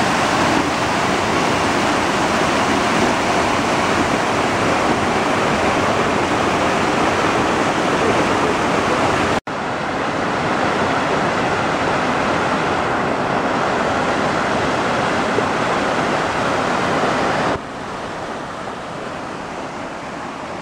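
Muddy floodwater cascading over a washed-out road edge and rushing down an eroded gully: a loud, steady rush of water. It cuts out for an instant about nine seconds in and turns quieter about three seconds before the end.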